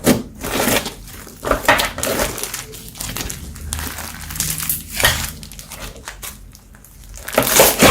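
Slime being squished and worked by hand, giving irregular crackling, crunching bursts, with the loudest burst near the end.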